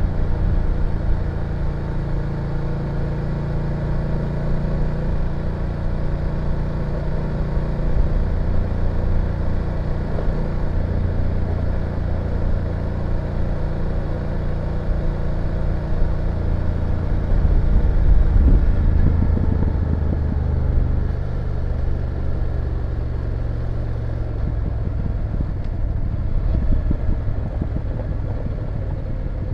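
BMW F850GS motorcycle's parallel-twin engine running steadily under way. It gets louder about two-thirds of the way through, then the engine note drops to a lower pitch.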